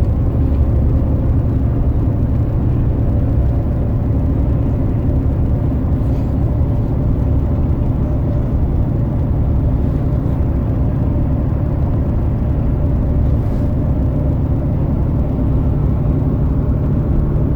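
Bus engine and road noise heard from inside the moving bus: a steady low rumble with a faint constant hum above it.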